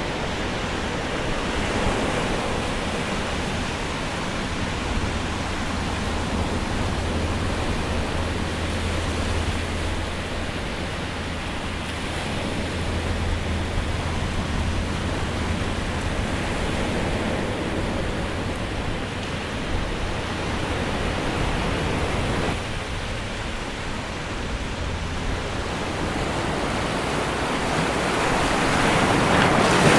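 Pacific surf washing over an intertidal rock shelf, a steady rush of breaking waves that swells louder near the end.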